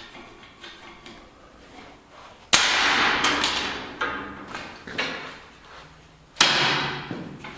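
Metal clanks from workshop work: light clicks and taps, then a loud clank about two and a half seconds in that rings and dies away over a second, a few smaller knocks, and a second loud ringing clank near the end.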